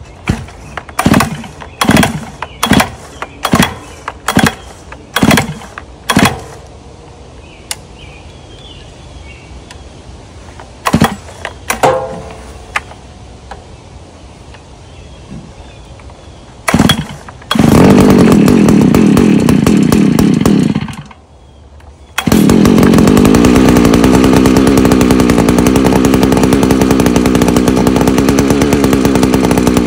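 Neo-Tech 72cc two-stroke earth auger engine being pull-started cold on choke: a quick series of recoil-starter pulls, a few more, then it catches about 17 seconds in, runs for a few seconds and dies. It fires again about 22 seconds in and keeps running steadily.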